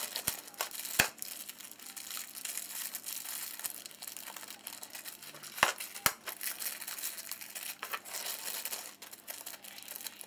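Small clear plastic zip bags of screws crinkling as they are handled, with a few sharp clicks, the loudest about a second in and twice around six seconds in.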